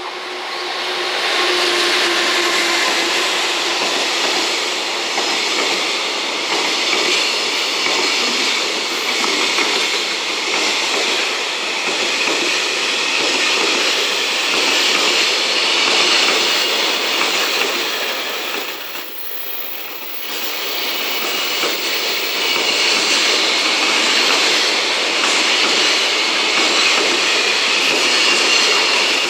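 Container freight train hauled by an EF210 electric locomotive passing close by, the locomotive going by first and then a long line of container wagons rolling past steadily on the rails, swelling over the first two seconds with a brief lull about two-thirds through.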